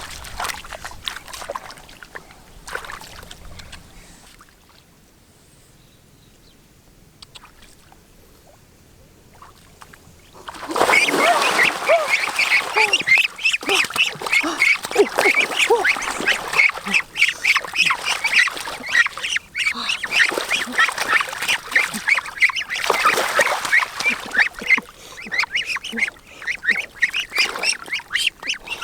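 A flock of ducks quacking together, many overlapping calls, breaking out loudly about a third of the way in after a quieter stretch.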